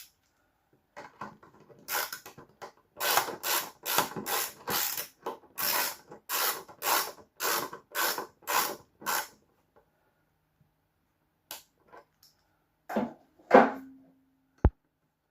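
A hand tool ratcheting in about fifteen quick, even strokes, roughly three a second, then stopping. Near the end come a single loud knock with a short ring, then a sharp click.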